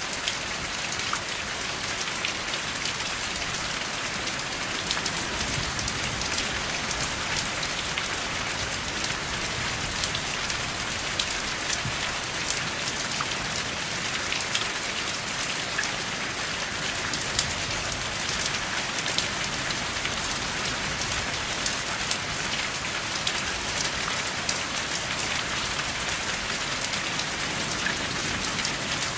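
Steady rain falling without thunder, an even hiss with many individual drops ticking throughout.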